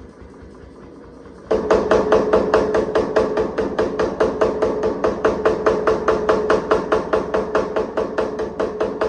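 Power hammer forging a hot damascus knife billet: a quiet hum, then about one and a half seconds in a sudden run of rapid, even blows, about five or six a second, with a ringing tone under them.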